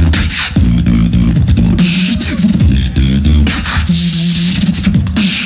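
Solo beatboxing amplified through a handheld microphone: a steady run of vocal drum hits over a pitched vocal bass line that holds and steps between notes.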